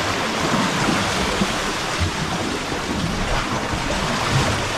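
Steady rushing noise of wind and sea water, with irregular low rumbles underneath.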